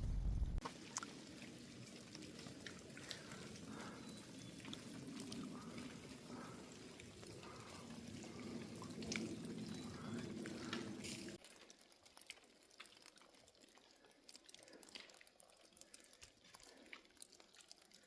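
Faint trickling and dripping water with scattered small drips; the sound drops suddenly to a quieter bed of drips about eleven seconds in.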